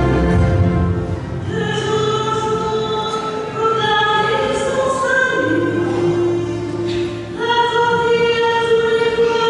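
Church choir singing a slow hymn in long held notes, with a woman's voice leading.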